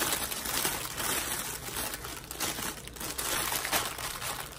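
Clear plastic bag crinkling and rustling irregularly as small packets of diamond-painting drills are pushed back into it by hand.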